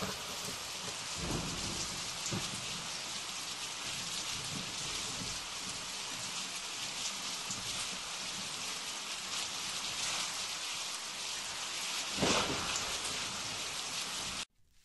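Steady rain falling with thunder, with a louder swell of thunder about twelve seconds in. It cuts off suddenly just before the end.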